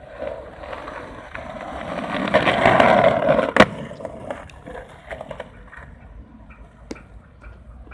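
Skateboard wheels rolling on asphalt, the rolling growing louder as a skater passes close by, then one sharp clack of the board about three and a half seconds in, followed by quieter rolling and a few light clicks.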